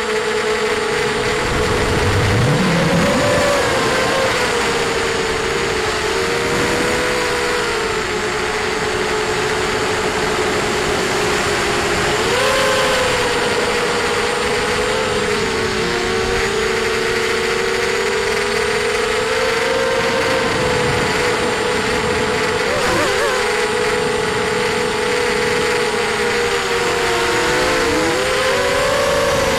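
ZMR250 quadcopter's brushless motors and 5x4 props whining, recorded by the onboard camera, with a haze of noise behind. The pitch rises and falls with the throttle, with several sharp dips and surges.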